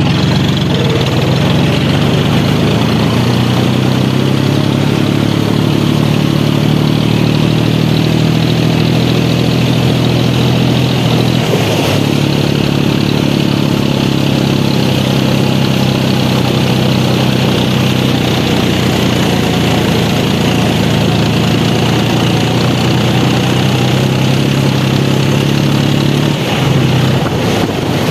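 John Deere tractor's diesel engine running steadily under load as the tractor ploughs through deep water, with the rushing splash of its bow wave over the engine.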